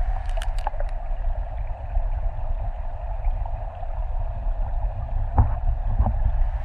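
River water heard through an underwater camera: a steady, muffled rushing with a deep rumble. Two knocks of rock against rock come about five and a half and six seconds in, as a large stone is worked loose from the streambed.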